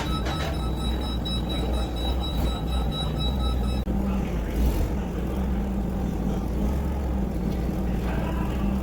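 A motor vehicle engine running steadily with a low hum, changing abruptly about four seconds in.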